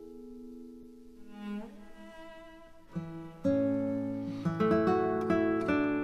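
Background music of plucked string notes playing a slow melody, softer at first and filling out with louder, fuller notes about three and a half seconds in.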